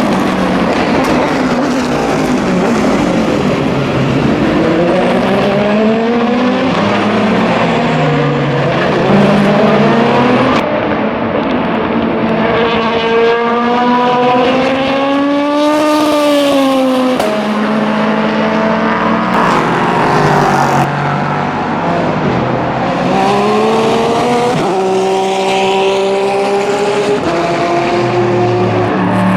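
Endurance race cars at speed, several engines overlapping. Their pitch climbs and falls with sudden steps at the gear changes, and one car passes close at about the middle, its pitch peaking then dropping.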